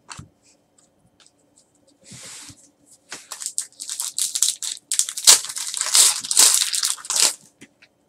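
Plastic trading-card pack wrapper being torn open and crinkled. A brief rustle comes first, then from about three seconds in a run of quick, irregular crinkling strokes, which stops shortly before the end.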